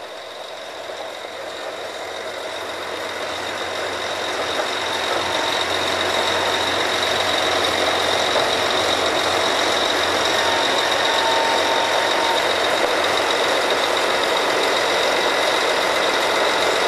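Drilling rig machinery running during drilling: a steady heavy mechanical noise with a high, steady whine above it. It grows louder over the first five or six seconds, then holds steady.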